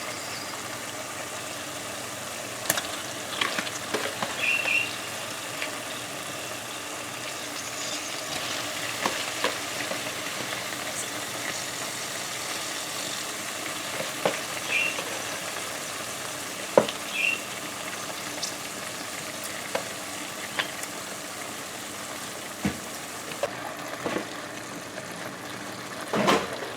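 Raw chicken livers and giblets sizzling and frying in hot oil with curry paste, with a utensil clicking and scraping against the pan now and then as they are stirred.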